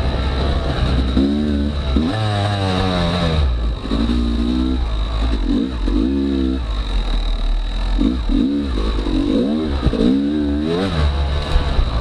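Yamaha YZ250X single-cylinder two-stroke dirt bike engine revving up and down over and over with the throttle while riding a trail.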